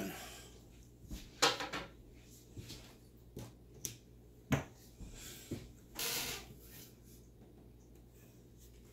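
Scattered light clicks and knocks of casino chips and dice being handled on a felt craps table: about half a dozen separate taps over several seconds, the sharpest about four and a half seconds in, with a brief rustle around six seconds.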